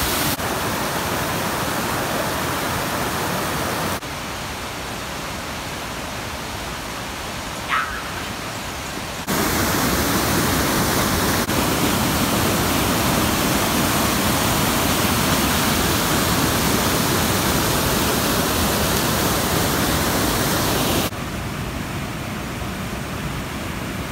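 A cascading mountain waterfall rushing: a steady noise with no gaps, stepping abruptly louder and quieter a few times and loudest through the middle.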